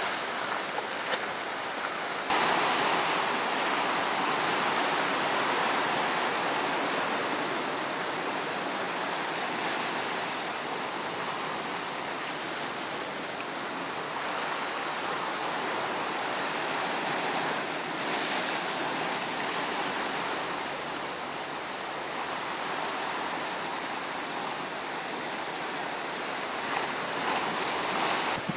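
Sea surf breaking and washing against a rocky shore: a steady rushing noise that swells and eases, getting abruptly louder about two seconds in.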